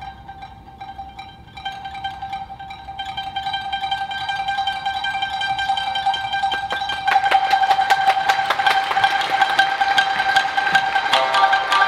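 Tsugaru shamisen played solo with a plectrum: rapid repeated strikes on one high note in a long, steady crescendo. The strokes grow louder and denser, and other notes join near the end.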